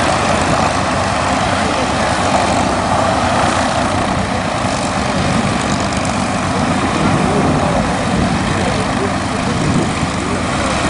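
P-51D Mustang's Merlin V-12 engine idling steadily, propeller turning.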